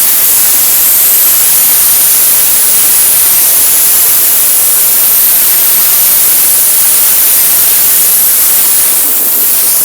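Pressure washer spraying water onto a wood deck at very low pressure: a loud, steady hiss.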